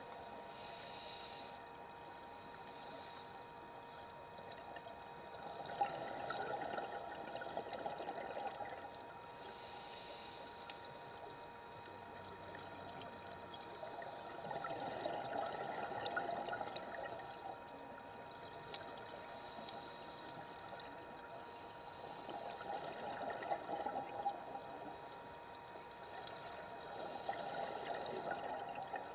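Scuba diver's breathing through a regulator, heard underwater: a burst of exhaled bubbles gurgling up about every seven or eight seconds, four times, with a quieter hiss of inhalation in between.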